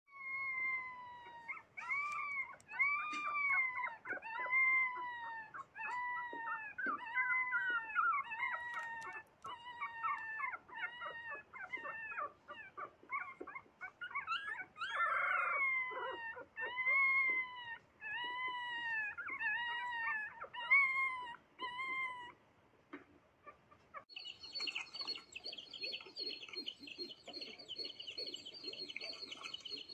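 Puppies whining and whimpering while play-fighting: a long string of high, arched whines at about one a second that stops a little past 22 seconds. About two seconds later a flock of chicks starts peeping, dense and unbroken.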